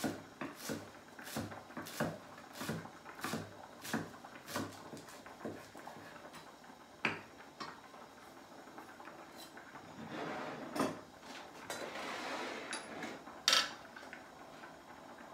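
Chef's knife chopping fresh coriander on a wooden chopping board: sharp knocks of the blade on the board, about three every two seconds for the first six seconds. The chopping then turns irregular, with a softer scraping stretch and one sharp knock near the end.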